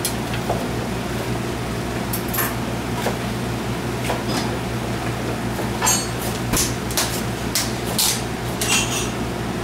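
Irregular knocks of a knife on a cutting board and sharp clinks of kitchen utensils and dishes, about a dozen in all and busiest in the second half, over a steady low hum of kitchen ventilation.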